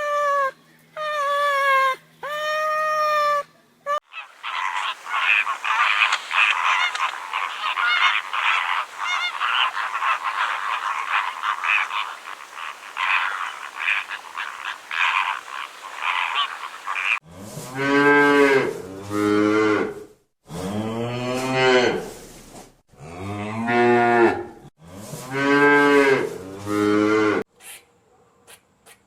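Cat meowing briefly, then a flock of poultry calling and honking over one another for about thirteen seconds. Near the end come several long, low moos from cattle.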